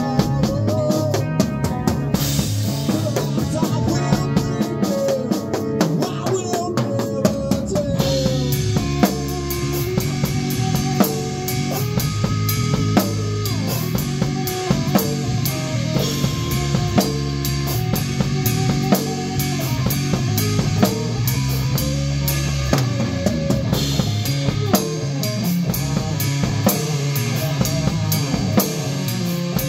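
A rock or metal drum kit played hard and fast, heard close from behind the kit, with kick drums, snare and crashing cymbals over a band's guitars. The cymbal wash is heaviest for the first several seconds, then the beat runs on with steady, rapid strokes.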